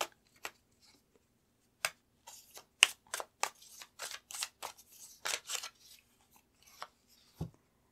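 Tarot cards being handled and drawn from the deck: a run of short, irregular snaps and flicks of card stock, with a soft thump near the end.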